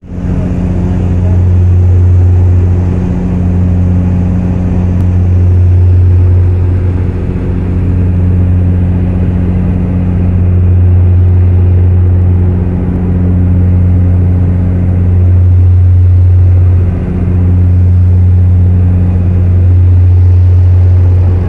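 Airliner engine drone heard inside the cabin: a loud, steady low hum with a few overtones above it, dipping briefly a few times.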